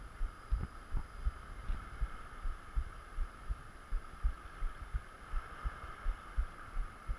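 Muffled low thumps close to the microphone, about two or three a second, over a steady hiss from the shallow sea around the camera.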